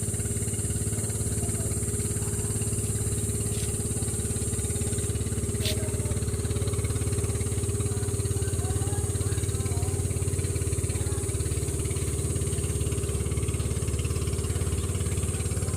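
A small engine running steadily at an even speed, with one brief click about six seconds in.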